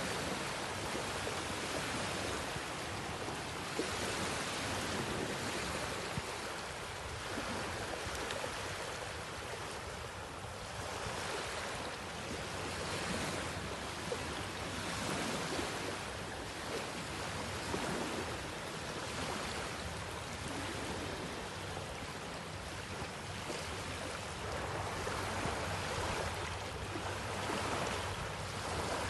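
Small sea waves washing in over a flat sandy beach: a steady rush of surf that swells and eases every few seconds.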